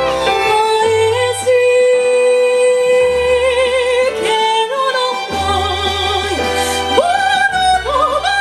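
A woman singing long held notes with vibrato in an operatic style, gliding up to higher notes near the end, accompanied by violin and steady low bass notes.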